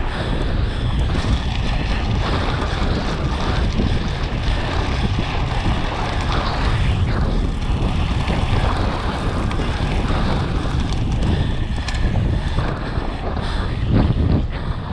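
Wind buffeting the microphone of a camera riding along on a mountain bike descending at speed, with a steady low rumble from the ride. A few sharp knocks near the end, like the bike hitting bumps.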